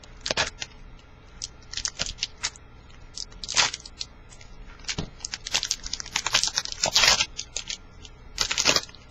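Trading-card pack wrapper being torn open and crinkled: a series of short rips and rustles, busiest and loudest about six to seven seconds in.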